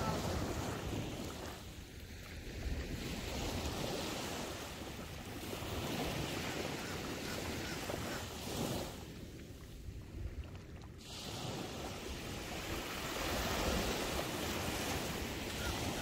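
Ocean surf breaking and washing up on a sandy beach, rising and falling in swells, with a brief lull about two-thirds of the way through. Wind rumbles on the microphone underneath.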